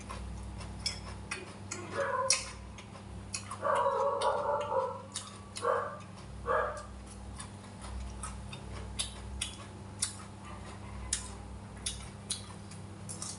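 Close-up eating sounds: a man chewing rice and fried fish, with many sharp mouth clicks and smacks and a few short murmured vocal sounds in the first half. A steady low hum runs beneath.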